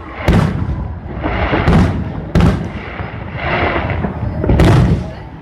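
Aerial fireworks bursting: four loud bangs, irregularly spaced about one to two seconds apart, each trailing off in a crackling rumble.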